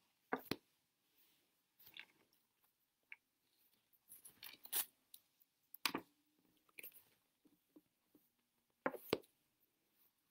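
Scattered faint clicks and short rustles of handling at a desk, with a few sharper clicks about half a second in, about six seconds in and a quick pair about nine seconds in.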